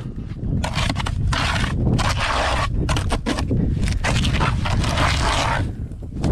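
Several scraping strokes, each about a second long with short gaps between them, of a tool working wet mortar for a fence post, over a low rumble.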